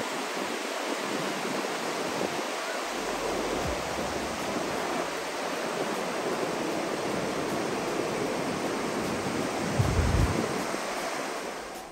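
Steady wash of sea surf breaking on a beach, an even rushing noise with no rise and fall of single waves standing out. About ten seconds in, a brief low rumble of wind hits the microphone.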